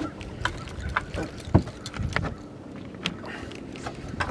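Knocks and clicks on a small fiberglass fishing skiff drifting on the water, over a low steady rumble of wind and water. The knocks are scattered and irregular, with a louder thump about a second and a half in.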